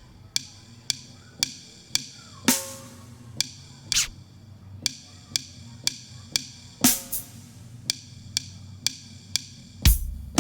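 Sampled jazz drum kit playing a steady beat of about two hits a second, with a ringing cymbal crash twice and a heavier bass-drum hit near the end. The kit is not round-robin sampled, so each repeated hit plays the identical sample.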